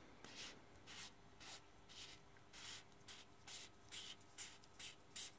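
Faint, scratchy rasps in an even rhythm, about two a second, as the threaded aluminium barrel of an Engineer SS-02 solder sucker is twisted apart by hand.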